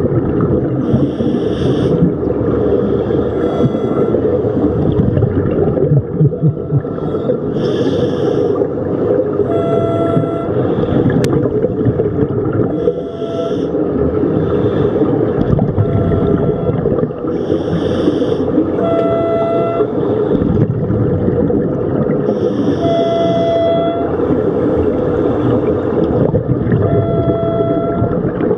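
Underwater sound of scuba divers breathing through their regulators: a bubbling hiss of exhaled air about every five seconds over a steady low rush of water, with short pitched hoots every few seconds in between.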